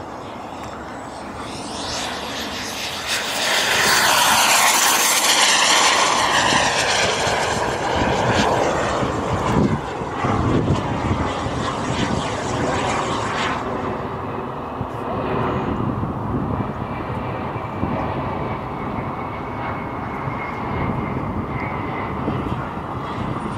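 Model jet turbine of a BVM Ultra Bandit RC jet in flight: a high-pitched whine and rush that swells as the jet comes close. It is loudest for about ten seconds, then drops abruptly to a fainter, steady whine as the jet moves off.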